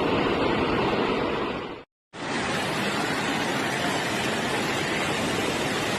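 Steady rushing of floodwater, with a brief dead-silent cut about two seconds in, after which a similar rushing picks up again.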